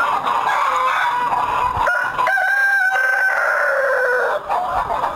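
A flock of Tiger chickens clucking and chattering, with a rooster crowing about two seconds in: one long call that drops in pitch at its end.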